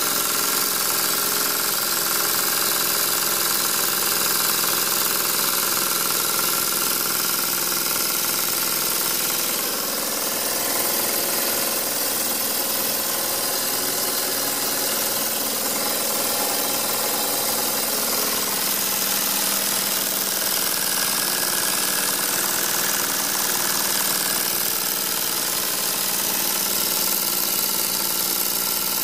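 Homemade single-cylinder steam engine running fast at full throttle, with a steady hiss of steam escaping around it.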